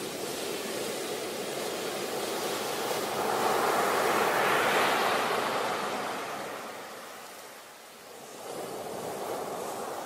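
Ocean surf: waves breaking and washing in as foam, a steady rushing that swells to its loudest about halfway through, fades off, then builds again near the end.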